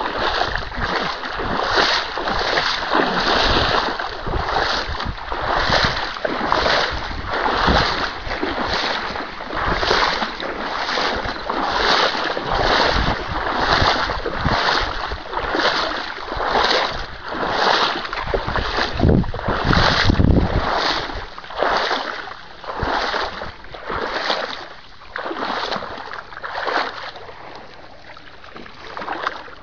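Rhythmic sloshing of a person wading through shallow water and marsh reeds, about one stride every three-quarters of a second, growing fainter and sparser in the last few seconds.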